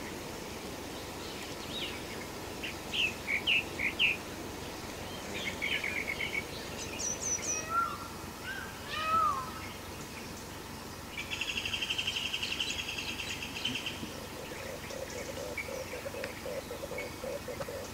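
Several birds calling in forest: short chirps and trills, a few falling whistles, then a fast trill held for a few seconds in the middle, and a lower rapid trill near the end, over a steady background hiss.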